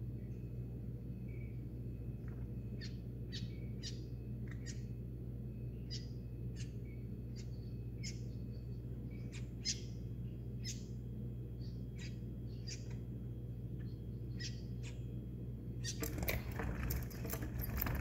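Small birds at a window feeder giving short, high chirps, several a second at times, over a steady low hum. Near the end comes a louder flurry of wing flapping as birds flutter up.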